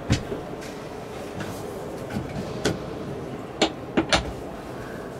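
Sharp wooden knocks and clicks as settee cushions are handled and a wooden storage drawer under a yacht's cabin seat is pulled open: one knock at the start, one in the middle, and three louder ones in quick succession around four seconds in, over a steady low background noise.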